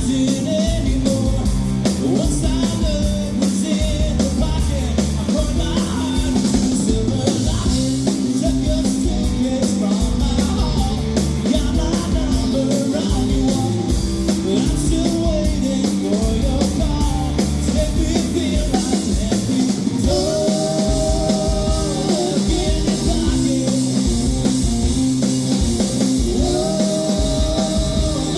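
Rock band playing a song live: a drum kit and amplified guitars under a singing voice.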